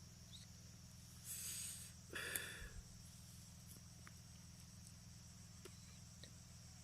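Faint steady trilling of insects, likely crickets, over a low hum, with two short louder sounds about a second and two seconds in.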